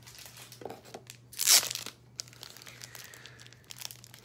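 Foil wrapper of a Topps Chrome trading-card pack crinkling and being torn open, with one loud rip about a second and a half in and lighter crackling around it.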